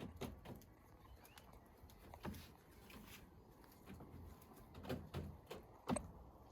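Backyard hens scratching and pecking, perhaps while dust-bathing: faint scattered scratches and taps, with a few soft low murmurs.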